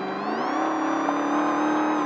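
Desert race truck's engine under power, its pitch climbing sharply about half a second in and then held high and steady at speed.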